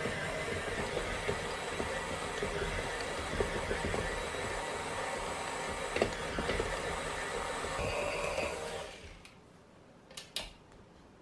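KitchenAid Classic stand mixer running at low speed, kneading bread dough with its dough hook: a steady motor whir with occasional knocks. The motor stops about nine seconds in, followed by a few sharp clicks.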